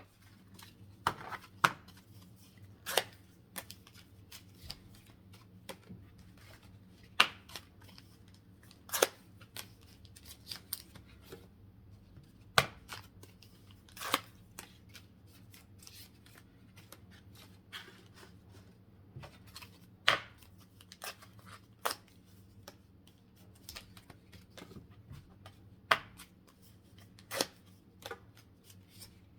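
Plastic blister packaging of trading-card packs being opened: irregular sharp snips, clicks and crackles of stiff plastic, over a faint low steady hum.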